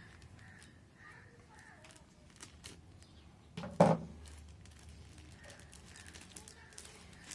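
Quiet handling noises: scattered small clicks and light rustling, with one loud knock about four seconds in.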